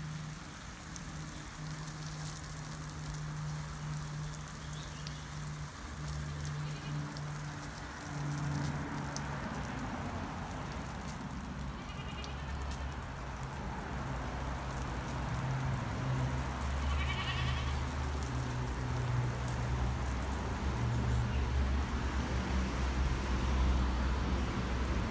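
Water streaming down the side of a rounded tank and pattering onto wet dirt and rocks, with a Nigerian Dwarf goat bleating briefly twice, about halfway through and again some five seconds later.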